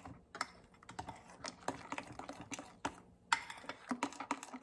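A spoon stirring thick coconut chutney in a glass bowl, knocking and scraping against the glass in quick, irregular clicks.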